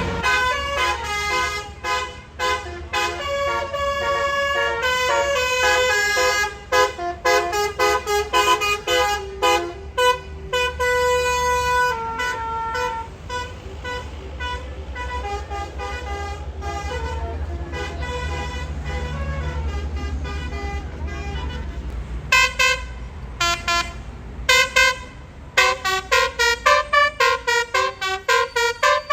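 A tour bus's 'basuri' telolet musical air horn playing melodies as runs of pitched toots over the low running of the bus engine. Near the end it switches to rapid short toots, about two a second.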